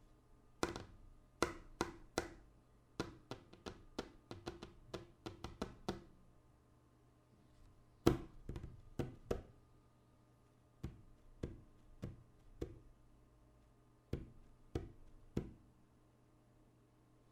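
Knocks on a tabletop in groups: four single knocks, then a quick run of about a dozen light taps, then louder knocks in sets of three or four with pauses between.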